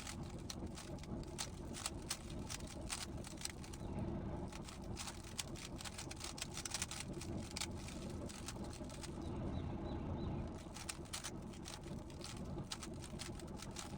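GAN 15 speedcube being turned by hand, its layers clicking in quick irregular runs as move sequences are executed, over a steady low background hum.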